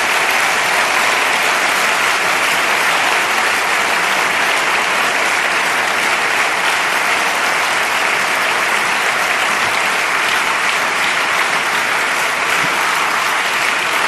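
Long, steady applause from a large audience.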